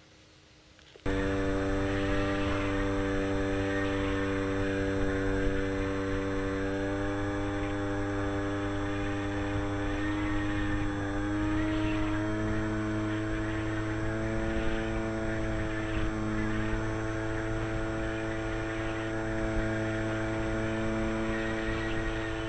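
Electric outrunner motor and propeller of a model Tiger Moth biplane, heard close up from the camera mounted between the cabane struts: a steady whine that steps up slightly in pitch about eleven seconds in. It starts suddenly about a second in, after a second of quiet.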